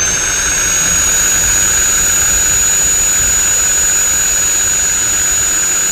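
Small electric rotary grinder with a pink abrasive stone, running at full speed with a steady high-pitched whine while it files down an African grey parrot's beak.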